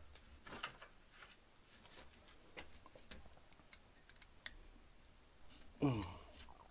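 Faint, scattered clicks and light taps of small metal carburetor parts and hand tools being handled during disassembly.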